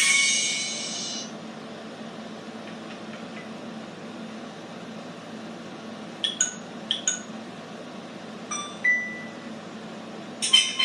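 Short, high, chiming notes of a Nokia phone ringtone: a quick cluster about six seconds in, a single note a couple of seconds later, and a louder cluster near the end, over a steady room hum. A louder tone fades out in the first second.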